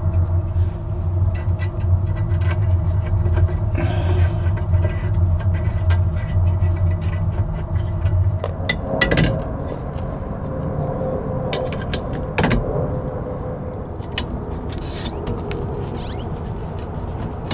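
Steady low machine hum with scattered light metallic clicks and knocks as the brass rod end of the steering linkage is worked onto the rudder's arm. About halfway through, the hum gives way to a quieter, different steady drone.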